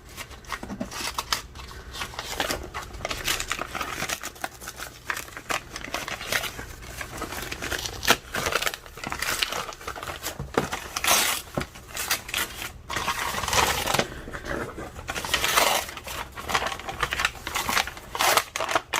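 Newspaper-style wrapping paper being torn and crumpled by hand as a package is unwrapped: irregular rustling and ripping throughout, with louder tearing bursts several times.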